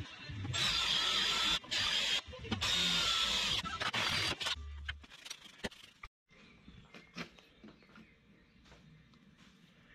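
Cordless drill spinning a wire brush against the inside of a differential carrier housing, running with a steady whine. It stops twice briefly and cuts off about four and a half seconds in. After that come a few faint clicks and knocks of hand tools on the housing.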